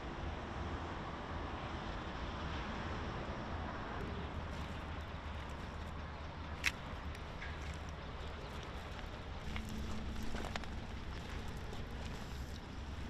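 Outdoor ambience over a rubble field: a steady low rumble, with light footsteps crunching on gravel and broken stone and one sharp click about six and a half seconds in.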